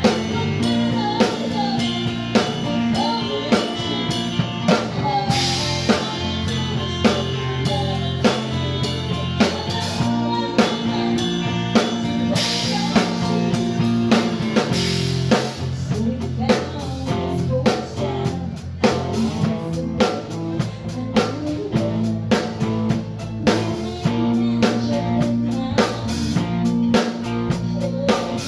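Acoustic drum kit played in a steady beat along with music carrying bass and guitar, with cymbal crashes about five seconds in and again about twelve seconds in.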